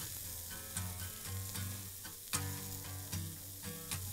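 Cubes of goose meat sizzling as they sear in a smoking-hot Lodge cast iron pan, with metal tongs clicking against the pan three times as the pieces are turned.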